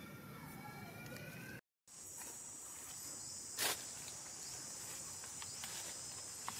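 Steady high-pitched insect drone from outdoor wildlife, with one sharp click about three and a half seconds in. Before a brief dropout near the start, a thin rising call can be heard.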